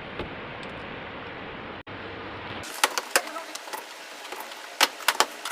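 An air cooler running with a steady whirring noise. About two and a half seconds in it gives way abruptly to a thinner sound with scattered sharp clicks and knocks.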